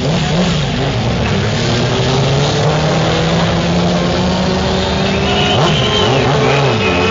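Several motorcycle engines running together, revving up and down, with quick swoops in pitch near the end.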